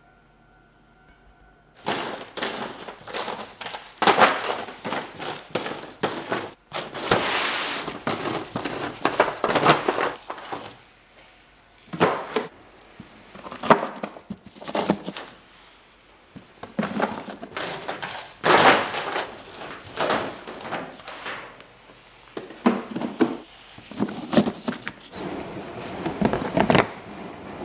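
Near silence for about two seconds, then a long run of irregular knocks, thuds and clatter of objects being handled, some loud and some faint, with no steady rhythm.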